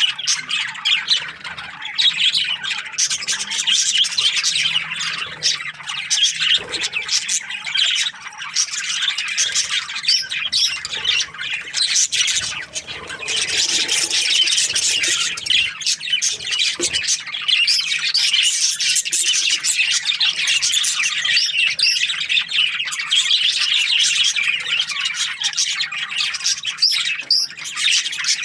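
A flock of budgerigars chirping and squawking all at once in continuous, dense chatter.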